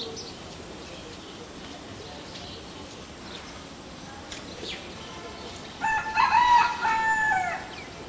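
A rooster crowing once, about six seconds in: a single pitched crow of just under two seconds, in joined segments that fall in pitch at the end.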